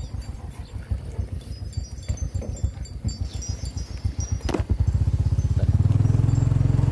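Low, uneven rumbling on the microphone, then from about five seconds in a small motorcycle engine is heard running steadily and more loudly.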